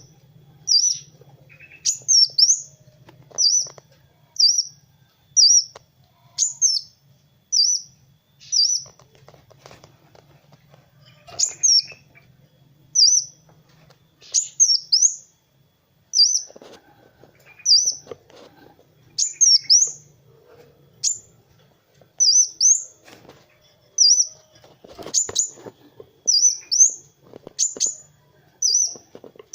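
Kolibri wulung sunbird calling: short, sharp, high chips repeated about once a second, some given as quick down-slurred doubles.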